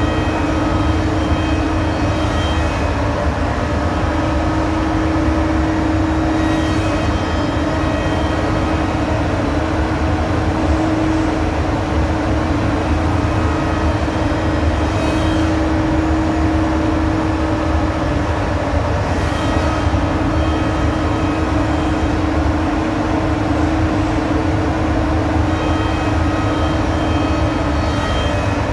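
Homag Venture 115M five-axis CNC machining centre running a wood-milling job: a loud, steady machine drone with a constant hum and a fainter, higher whine that comes and goes several times as the head works.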